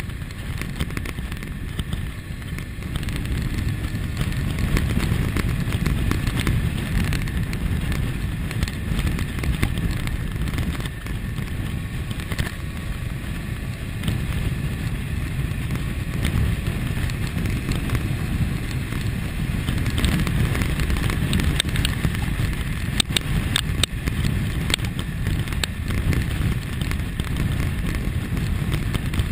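Wind rushing over the microphone on a moving 2001 Kawasaki ZX-6R sport bike, with the 599 cc inline-four engine running under it. The sound grows louder a few seconds in and stays steady after that, with a few small clicks near the end.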